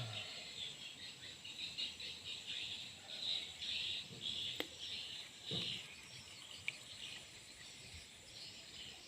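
Insects chirring in a rapid, uneven pulsing chorus that fades somewhat after about six seconds, with a sharp click about four and a half seconds in and a soft low thud soon after.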